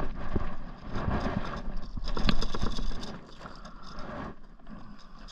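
Handling noise as a bass is unhooked with pliers on the floor of an inflatable kayak: scraping, rattling and a few sharp knocks of the hooks, pliers and fish, over a rumble of wind on the microphone. It is loudest in the first three seconds, then quieter.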